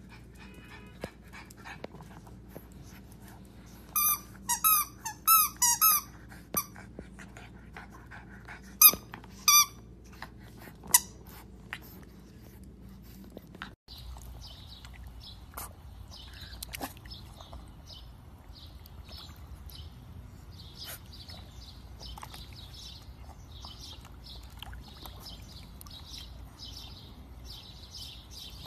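Squeaky dog toy squeaked in a quick run of short, high squeaks, then three more spaced out, as a French bulldog puppy chews it. Later, faint birds chirping over a low steady hiss.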